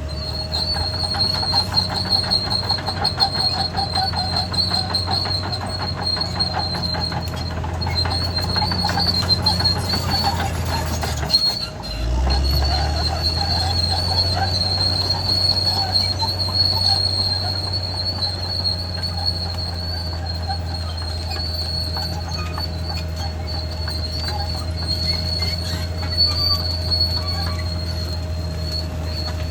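Caterpillar D6R XL crawler bulldozer working: the diesel engine runs steadily under the clatter of its steel tracks, with a continuous high-pitched squeal from the undercarriage. The sound breaks off briefly about twelve seconds in and resumes at a slightly different engine note.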